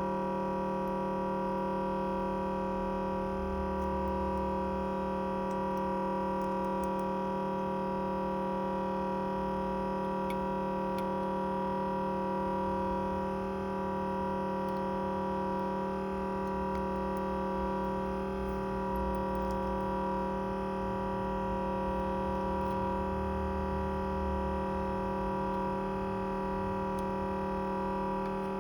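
Background music: a steady synthesizer drone of held tones.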